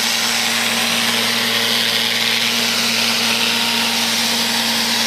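Neato robot vacuum cleaner running, a steady whirring hiss from its suction motor and brush with an even hum beneath.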